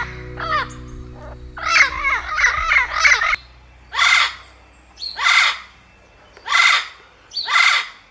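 Parrot calling: a run of squawky, pitch-bending calls, then four harsh screeches about a second apart.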